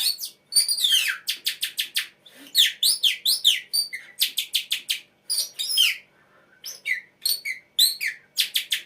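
A person imitating a tit's song, whistling through a strip of plastic film held between lip and teeth. It comes as quick runs of sharp, high chirps, broken by a few falling slurred notes and short pauses.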